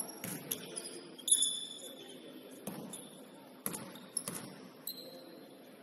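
Basketball game sounds on a court: a ball bouncing and scattered sharp hits and knocks at irregular intervals. One louder hit about a second in is followed by a brief high ringing tone. Faint voices sit underneath.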